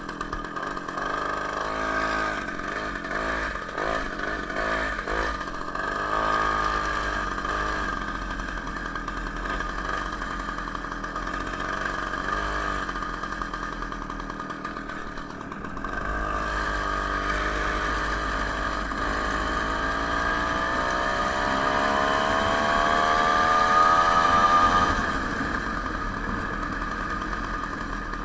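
Homemade moped's two-stroke Ural chainsaw engine running under way, nearly warmed up, its pitch rising and falling with the throttle. About twenty seconds in it revs up steadily for several seconds, then drops back.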